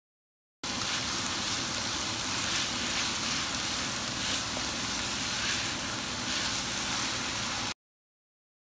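Chopped garlic, shallot and sliced fish cake sizzling in hot oil in a wok: a steady, even frying hiss. It starts abruptly about half a second in and cuts off suddenly near the end.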